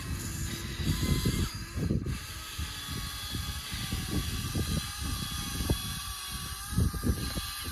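Electric drive motors and gearboxes of small radio-controlled model tractors whining steadily as they crawl through snow, with irregular low rumbling underneath.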